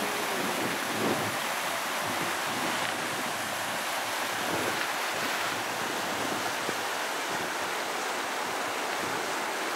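River in flood: fast, muddy water rushing and churning in a steady loud rush.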